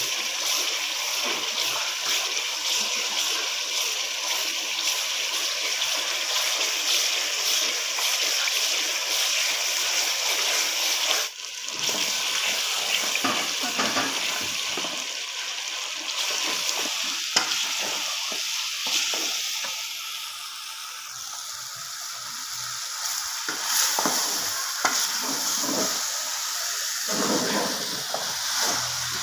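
Onion and spice masala frying in hot oil in a steel pan, a steady sizzle with a wooden spoon stirring and scraping through it. The sizzle drops out briefly about eleven seconds in. Near the end, potato and cauliflower pieces are frying and being stirred in the pan.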